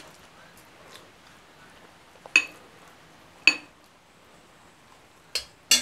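Metal spatula clinking against a glass bowl while spreading a soft, grainy mixture. A sharp clink comes a little over two seconds in and another about a second later, then two more close together near the end, the last one the loudest.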